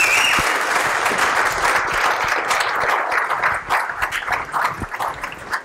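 Audience applauding, dense at first and thinning to scattered claps near the end, with a brief high whistle at the start.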